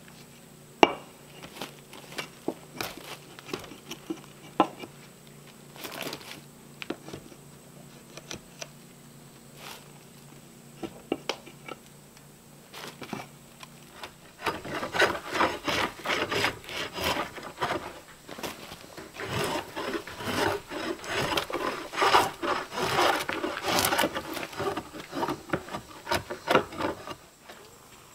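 Hatchet chopping and scraping the bark off the edge of a wooden board: scattered single knocks at first, then from about halfway a dense run of rapid scraping strokes.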